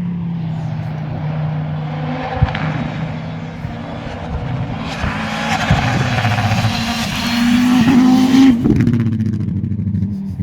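Audi quattro five-cylinder engine running, its note holding fairly steady, then climbing briefly near the end before dropping away.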